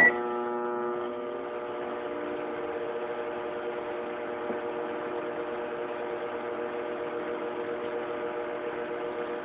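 Microwave oven running with a steady hum, started with a short high beep. The hum stops near the end.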